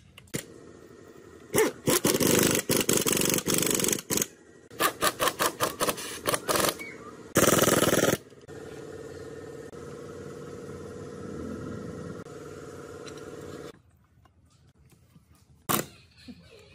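Pneumatic impact wrench driving bolts into an aluminium gearbox housing: several short bursts of rapid hammering in the first half, the loudest just before the middle. Then a steady hum for about five seconds that cuts off suddenly, and a single click near the end.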